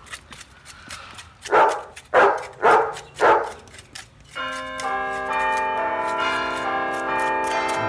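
Four loud short cries about half a second apart, then music of ringing, bell-like tones that starts about four and a half seconds in and holds steady.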